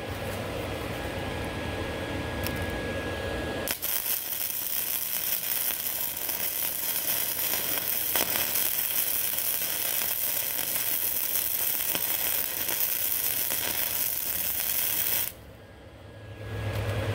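MIG welder arc crackling steadily as a wire-fed bead is laid on a cracked cast iron engine block, starting suddenly about four seconds in and cutting off sharply near the end. A low hum runs before and after the arc.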